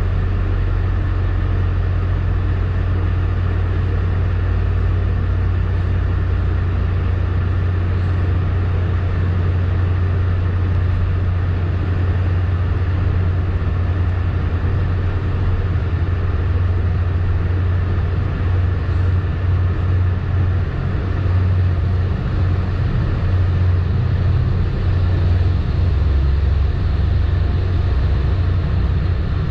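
Steady low rumble of a commuter rail passenger train running along the track, heard from inside the coach.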